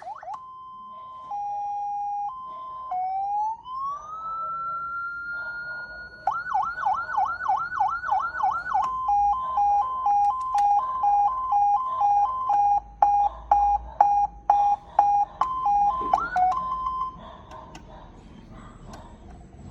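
A 12 V ambulance siren amplifier switched through its tones: a steady tone, a rising wail held high, fast yelp sweeps about four a second, then a two-tone hi-lo alternation. Near the end it rises briefly again and then stops.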